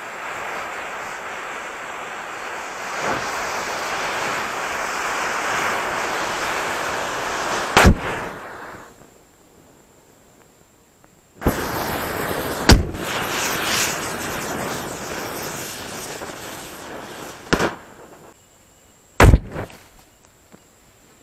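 Bundles of matchsticks flaring up with a rushing hiss of burning match heads, in two spells of several seconds with a short lull between them. Firecrackers go off in sharp bangs through the burning: one about eight seconds in, another about thirteen seconds in, a couple of smaller pops, and a last bang near the end.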